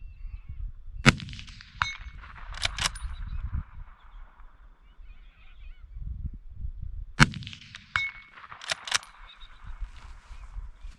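Two rifle shots about six seconds apart. Each is followed under a second later by a short metallic ring, typical of a distant steel target being hit, and then by two sharp metallic clicks of the bolt being worked.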